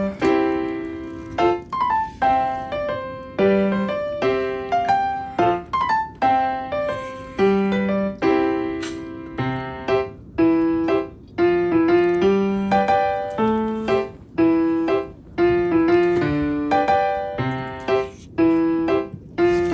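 Background music: a piano melody of struck, decaying notes in a steady, even rhythm.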